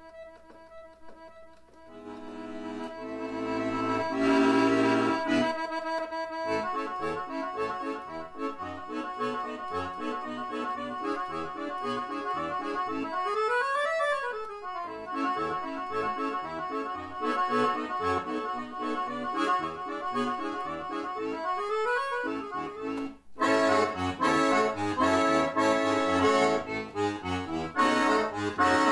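Roland V-Accordion (digital accordion) playing a ragtime-style shuffle. It opens on held chords, then settles into a steady bass-and-chord rhythm under the right-hand melody. Twice the pitch swoops up and back down, and the last few seconds are louder and fuller.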